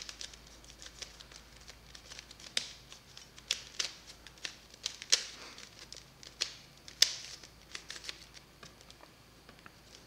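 Plastic Mirror Cube being turned by hand: irregular clicks and clacks of its layers twisting, with a few sharper clacks about 2.5, 4, 5 and 7 seconds in.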